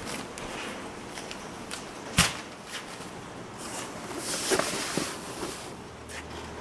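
Work handling noises: a sharp knock about two seconds in, a few lighter clicks, and a stretch of hissing noise a little past the middle.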